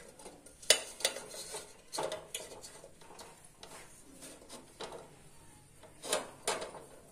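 A steel vessel knocking and clinking against the inside of a steel idli cooker as it is set down and settled on the stand inside. There are several sharp metal knocks, the loudest about a second in, with two more near the end and light scraping between.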